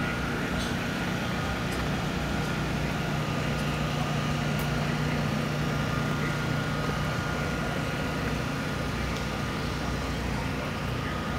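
Steady low mechanical hum at a constant speed, with a faint high whine above it and a few light clicks.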